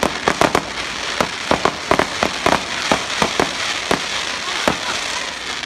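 Fireworks going off: a rapid, irregular run of sharp bangs and cracks, about three or four a second, over a continuous crackling hiss.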